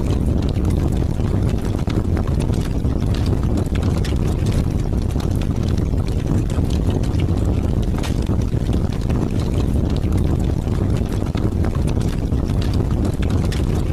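Heavy rain with strong wind: a steady low rushing with many scattered sharp ticks of drops.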